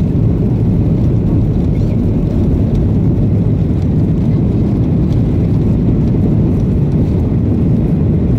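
Steady low rumble inside the cabin of a Ryanair Boeing 737-800 as it rolls along the runway: its jet engines running with the noise of the wheels and airframe.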